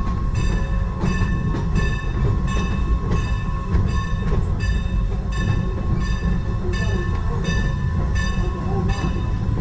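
Steam train running with a steady low rumble, and a bell ringing over it with a stroke about every 0.7 seconds.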